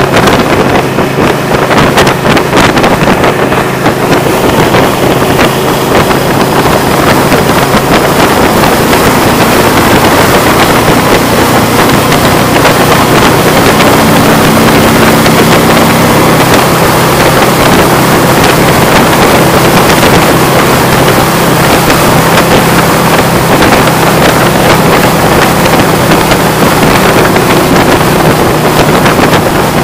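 Wind rushing over the microphone of a camera mounted on a motorcycle at highway speed, with the motorcycle engine's steady drone underneath.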